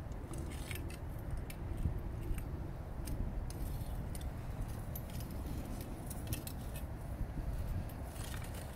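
Ride-on sandbox digger toy being worked in sand, giving scattered light clinks and scrapes from its metal bucket and joints over a steady low rumble.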